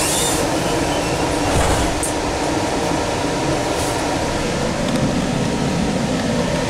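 Sound Transit Link light rail train heard from inside the passenger car: a steady rumble and rush of running noise.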